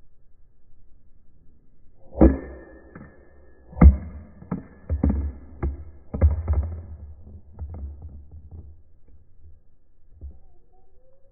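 A run of sharp knocks and thuds over about five seconds, starting about two seconds in and loudest in its first two strikes, as a plastic measuring jug on a concrete driveway is bumped and knocked over.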